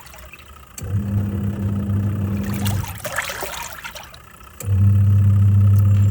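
Twin-tub washing machine washing a load: the wash motor hums in spells of about two seconds with pauses between, as the pulsator stops and reverses. Water sloshes and splashes throughout, most strongly in the pause.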